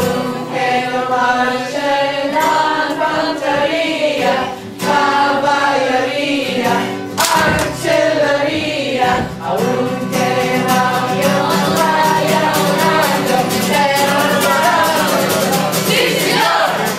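A crowd singing a worship song together to acoustic guitar.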